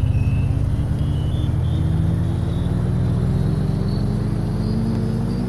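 A low, steady droning hum of several tones whose pitch slowly rises throughout.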